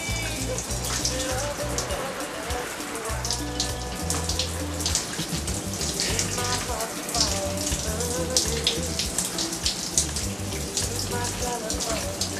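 Shower spray running and splashing, a constant hiss with crackling spatters, mixed with music that has a heavy, steady bass line.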